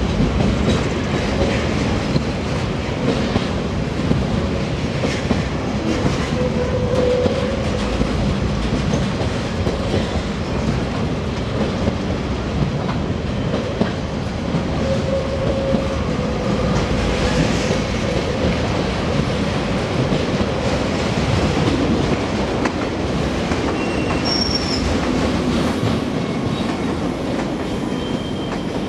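A long freight train of covered vans and enclosed car-carrier wagons rolling past: a steady rumble and clatter of wagon wheels on the rails, with brief wheel squeals now and then, easing off near the end as the last wagon goes by.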